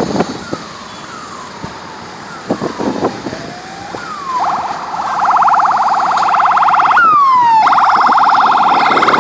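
Police car siren close by: a few faint falling chirps, then from about four seconds in a loud, rapid warbling tone, broken twice by a falling sweep.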